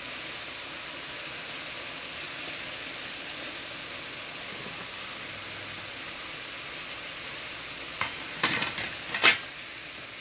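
Small dried fish (nsensa) frying in oil in a pan, a steady sizzle. Near the end come a few sharp knocks, the loudest about nine seconds in.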